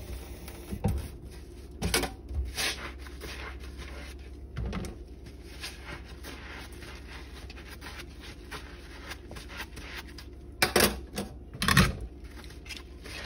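Dishwashing by hand in a stainless steel sink: a soapy sponge scrubbing dishes and utensils, with scattered knocks and clinks of dishware against the sink. The loudest knocks come in a short cluster near the end.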